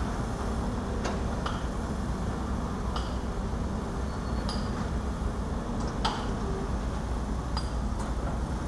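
Diesel engines of Caterpillar 320 hydraulic excavators running steadily, with scattered sharp metallic clinks, about one a second, as rock is handled and loaded into a dump truck.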